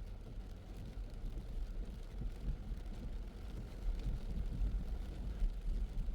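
A car on the move: a low, uneven rumble of road and engine noise.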